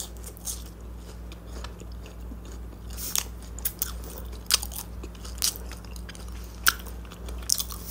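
Close-miked chewing of a mouthful of food: soft wet mouth sounds with scattered short, sharp clicks and crunches. A steady low hum runs underneath.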